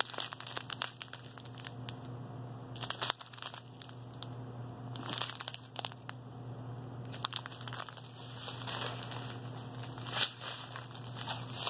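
Small clear plastic bags of diamond painting drills crinkling in short bursts, about seven times, as they are handled and set down.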